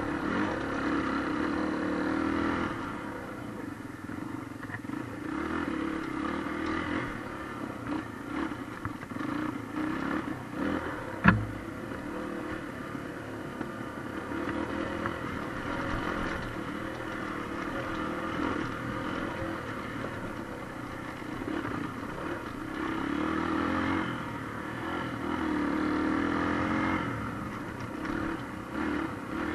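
Motorcycle engine running and revving up and down while riding a rough dirt trail, with rattling from the bike. A single sharp knock about eleven seconds in is the loudest sound.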